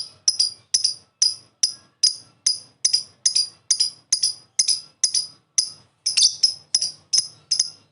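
Lovebird singing its 'ngekek' song: a long run of short, sharp, high-pitched chattering notes at about three a second, now and then doubled.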